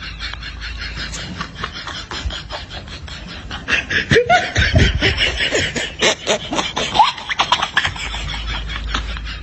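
Laughter: quick, rapid pulses of laughing, which swell into a louder bout with rising and falling pitch from about four seconds in to about eight seconds in.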